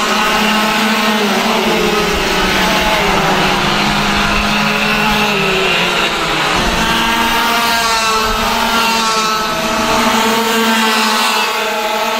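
Several racing kart engines running at high revs together, their pitch rising and falling as the karts accelerate, brake and pass.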